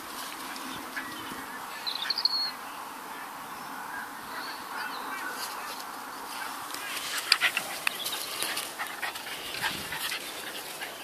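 Patterdale terrier cross puppy playing with a rubber ball on grass: a short, high-pitched squeak about two seconds in, then a run of sharp clicks and rustles around seven to eight seconds in as it mouths the ball.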